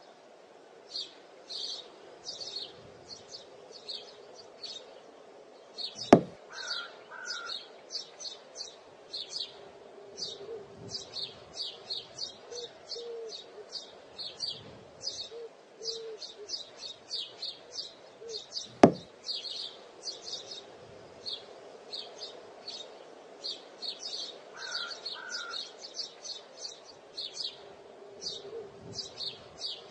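Many small birds chirping steadily, with two sharp clacks some thirteen seconds apart that stand out above them: metal boules striking.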